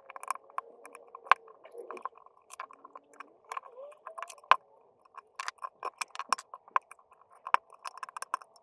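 Irregular clicks, taps and faint scraping of precision screwdriver tips against the plastic shell of an Amazon Echo Pop smart speaker, as the tips are pushed through small holes to release its hidden clips and pry it open.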